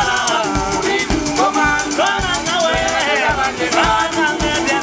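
Men singing loudly together, their voices sliding up and down, over a band of homemade instruments: a tin-can fiddle, a plank guitar, and a steady clicking, rattling beat with low thumps.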